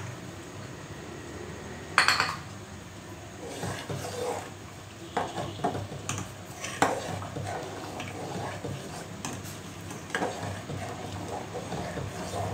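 Metal spoon stirring soup in a steel pot, clinking now and then against the pot's side; the sharpest clink comes about two seconds in. A steady low hum runs underneath.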